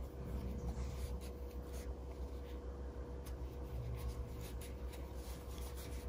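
Faint scratching and rubbing of a crochet hook working acrylic yarn through stitches, in soft irregular strokes.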